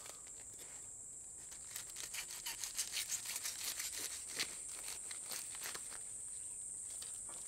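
A large kitchen knife crunching and crackling through the charred, sugar-caramelized crust of a whole roasted pineapple, a quick run of small cracks starting about two seconds in and easing off after about four seconds. Crickets chirr steadily behind it.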